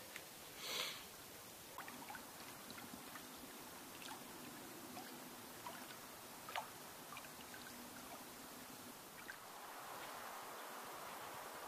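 Faint outdoor ambience: scattered light drips and ticks over a soft hiss, with a brief rustle about a second in and the hiss growing slightly fuller near the end.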